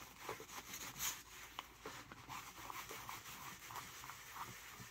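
Sheep's wool dauber rubbing leather dye into the flesh side of a leather holster: faint, irregular scrubbing strokes.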